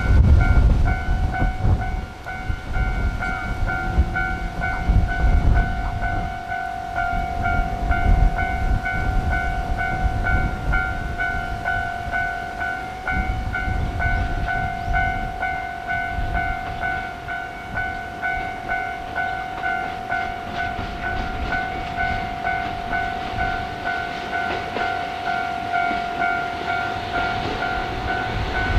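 A train passing, its rumble carrying a regular clicking pulse of wheels over rail joints, about one a second in the later part. A steady ringing tone sounds the whole time.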